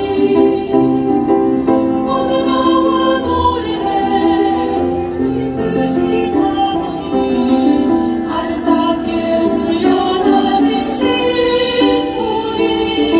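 Women's choir singing a slow song in harmony, with several voices holding long notes together.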